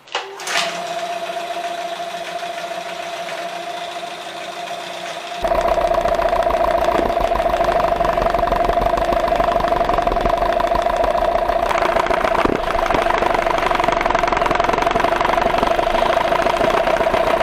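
Outboard motor catching right at the start, then idling steadily with a knock that the mechanic puts down to worn piston pins. The engine gets much louder after about five seconds.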